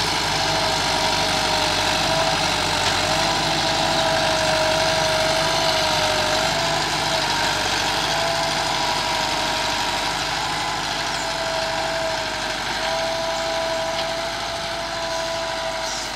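Massey Ferguson MF 385 tractor's four-cylinder diesel engine running steadily under load while it pulls a tine cultivator through the soil. It grows a little fainter near the end as the tractor moves away.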